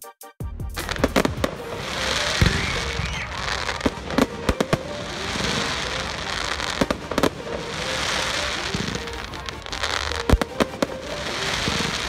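Fireworks display: shells bursting with sharp bangs, several in quick pairs, between repeated swells of dense crackling.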